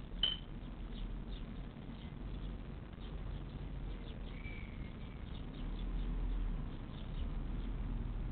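Faint cheeps and squeaks from nestling birds in a nest box: one short high chirp just after the start and a brief thin whistle about four seconds in, with scattered soft ticks, over a steady low hum.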